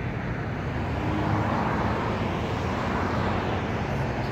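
Road traffic going by: a steady rumble of car engines and tyre noise that swells as vehicles pass.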